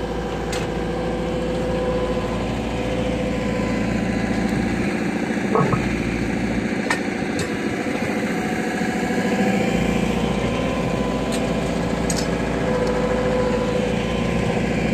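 Caterpillar M314F wheeled excavator's diesel engine running steadily, with a few short light knocks and clinks over it.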